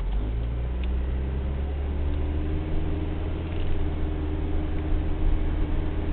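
A vehicle engine running with a steady low hum, which comes in abruptly right at the start.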